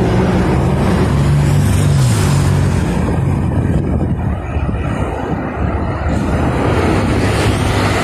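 Steady roar of multi-lane highway traffic, cars and trucks passing. An engine note drops in pitch as a vehicle goes by about two seconds in, and another vehicle swells past near the end.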